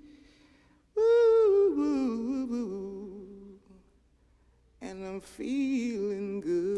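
Background music: a solo voice singing long notes that slide in pitch, without accompaniment, in two phrases with a short quiet gap between them.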